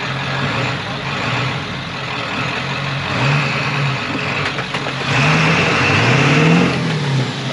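Off-road truck engine revving up and down three times, the last rev the longest and loudest, near the end.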